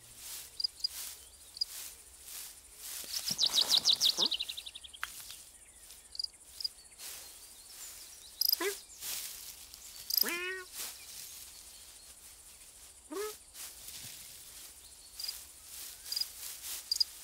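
Cartoon countryside ambience: birds chirping, with a fast trill that falls slightly in pitch about three seconds in. Three short calls sweep upward in pitch near eight, ten and thirteen seconds, over light rustling and ticking in the grass.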